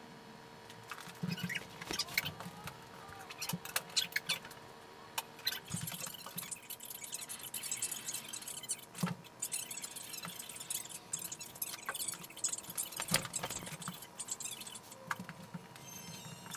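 Rustling and handling of a large sheet of fabric on a wooden floor, with scattered irregular clicks and taps and a faint steady tone underneath.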